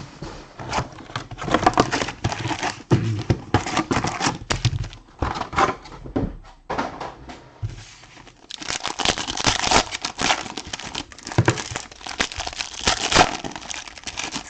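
Plastic wrapping crinkling and tearing as a sealed trading-card box is unwrapped, in irregular crackly bursts that are busiest in the second half.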